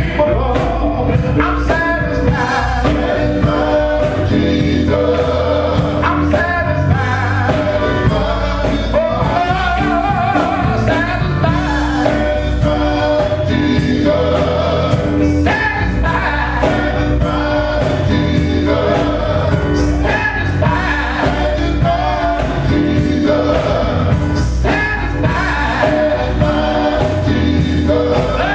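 Live gospel music: a male lead singer on a microphone with backing voices, over electric guitar, electric bass and a drum kit keeping a steady beat.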